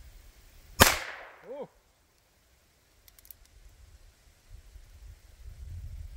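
A single revolver shot about a second in: a sharp crack that rings out briefly. A short voiced grunt follows, and a few faint clicks come around the middle.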